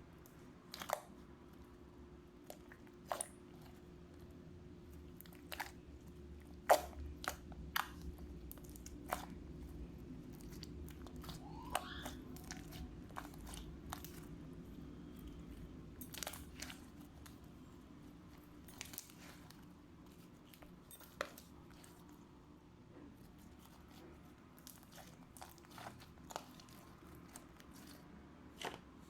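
Slime being poked and squeezed by hand, giving irregular sharp pops and crackles every second or two, the loudest about a quarter of the way in, over a faint steady low hum.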